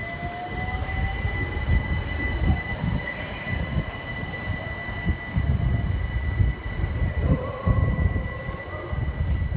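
Great Northern Class 387 Electrostar electric multiple unit moving off through the station: a steady rumble of wheels and bogies on the track, with a faint rising traction-motor whine in the first second or so as it gathers speed.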